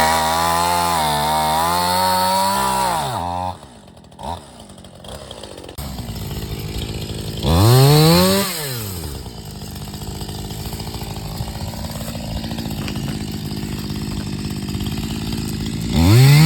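A chainsaw engine held at high revs, then dropping to a lower steady run, with a short rev rising and falling about eight seconds in and another rev starting near the end, as it cuts bush honeysuckle stems.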